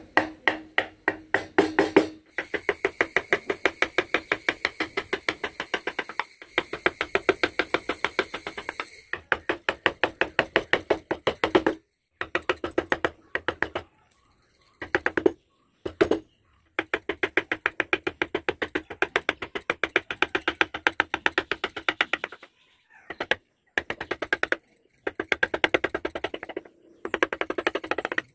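Rapid, even tapping of a mallet on a wood carving chisel, several strikes a second, in stretches that stop and start abruptly.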